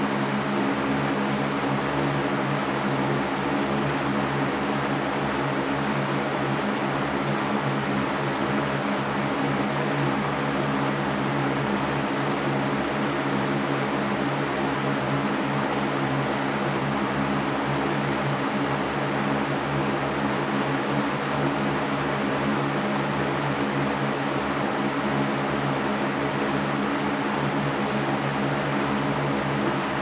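Large Mastercraft metal floor fan running steadily: an even rush of moving air over a constant low hum.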